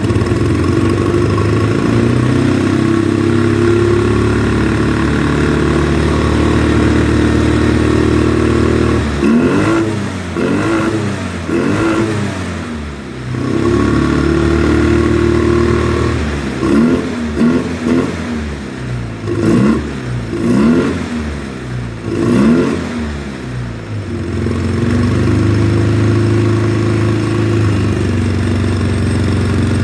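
2009 Polaris Sportsman 800 ATV engine running steadily. About nine seconds in, the throttle is blipped in a series of revs up and back down, and near the end it settles back to a steady run. It is running rough with a lumpy idle on fuel injection cleaner, which the mechanic fears comes from gummed-up injectors and fouled spark plugs.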